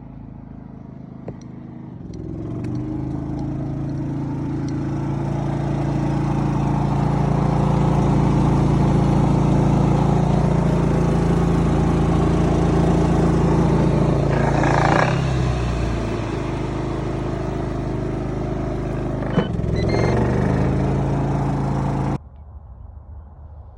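Volkswagen Touareg diesel engine running, building up over the first few seconds to a steady drone. The drone breaks briefly about fifteen seconds in, a sharp click comes near twenty seconds, and the sound cuts off suddenly a little before the end.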